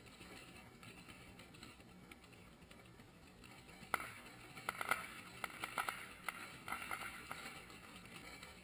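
Ground fountain firework spraying sparks with a faint steady hiss, then a run of sharp crackling pops from about four seconds in until past seven seconds.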